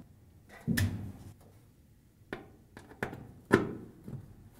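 Scattered metal clicks and knocks from a 1/4-inch nut driver seating on and tightening the retaining screws of a dryer's sheet-metal heater housing, with louder knocks just under a second in and about three and a half seconds in.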